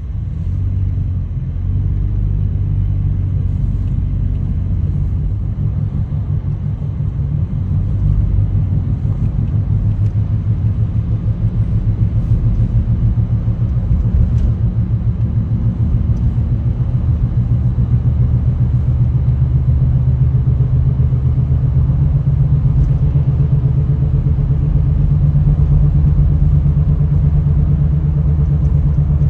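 Car running, a low steady rumble with an engine note that rises slightly in the second half.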